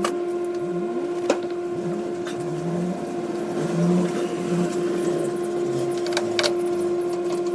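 Lathe running with a steady, even whine, with a few sharp clicks and taps of metal scattered through it.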